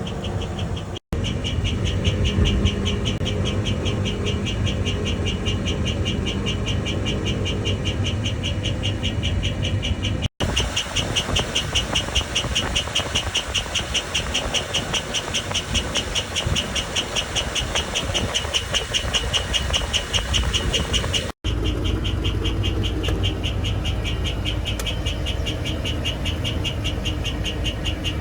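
GM 8.1 L Vortec 8100 V8 running steadily, with a rapid, evenly repeating high chirp over the engine noise. The chirp sets in once the engine is warm. Mechanics have not diagnosed it, and lifter noise or piston slap has been suggested.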